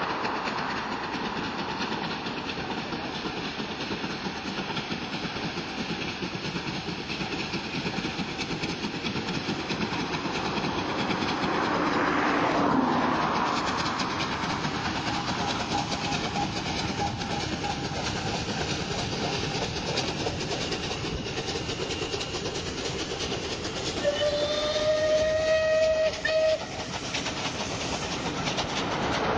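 Steam locomotive hauling a passenger train past, its running and exhaust noise loudest about halfway through, then the coaches rolling by with wheel clatter. Near the end the steam whistle blows one held note for about two and a half seconds and cuts off sharply.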